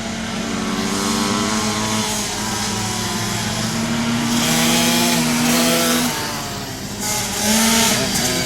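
Several flat-track racing motorcycles running around a dirt oval, engines revving up and down as they pass. The sound swells about halfway through and again near the end as bikes go by closer.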